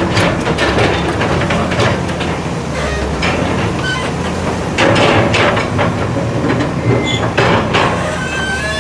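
Excavator's diesel engine running steadily, with irregular metallic clanking and rattling over it and a few short high squeaks near the end.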